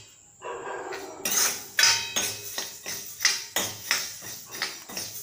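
Steel ladle scraping and stirring coriander seeds as they dry-roast in an iron kadai: a run of quick scraping strokes, about three a second, starting about a second in.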